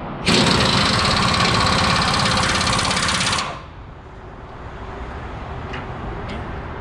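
Impact wrench hammering for about three seconds on a seized bolt, then stopping abruptly. The bolt is stuck fast after decades in place.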